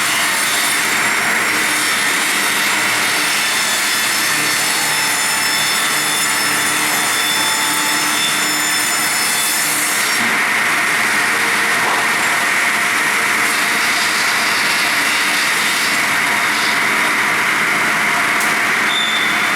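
Twin-blade circular log saw running steadily and sawing through a log. A high whine over the cutting noise drops away about halfway through.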